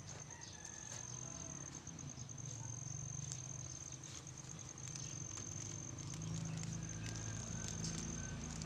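A steady high-pitched insect trill. Under it come faint rustles and clicks of soil and a plastic nursery pot being handled, and a low rumble that builds from about a second in and is louder near the end.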